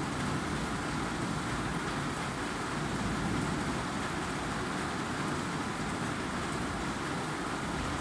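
Heavy rain falling steadily: an even rushing hiss with a strong low rumble underneath.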